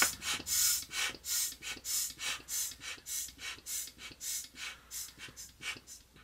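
Air pump forcing air through a hose into a vinyl swim ring: rhythmic hissing puffs, about three a second, growing fainter toward the end.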